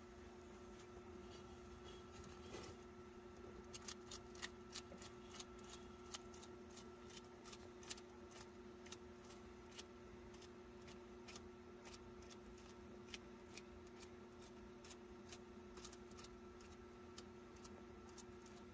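Bearded dragon chewing a crunchy collard green leaf: faint, sharp, irregular crunches. They start about four seconds in, come thick and fast for a few seconds, then thin out to one every second or so.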